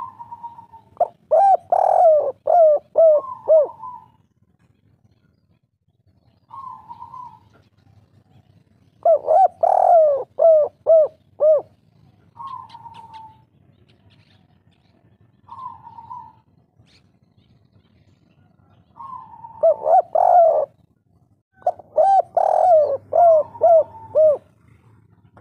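Spotted dove (tekukur) cooing in the 'kuk 3' song style: four runs of quick, falling coos, with a single short coo between them three times.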